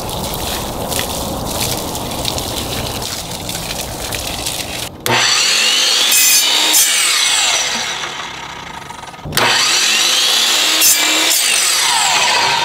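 A garden hose sprays water in a steady hiss. About five seconds in, an electric compound miter saw starts up and cuts through a thin wooden strip, then spins down. A little over a second later it starts and cuts again.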